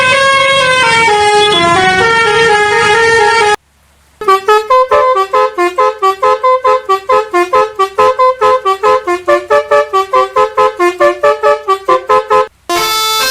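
Bus 'telolet' Basuri multi-tone musical horn playing tunes: a held melody stepping between notes for the first few seconds, then after a short break a rapid run of short staccato horn blasts, about four a second, for some eight seconds, and another held melody near the end.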